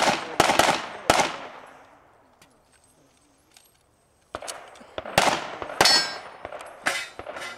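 Glock 35 .40 S&W pistol firing: a quick string of about four shots, a pause of about three seconds, then another string of about five shots, irregularly spaced.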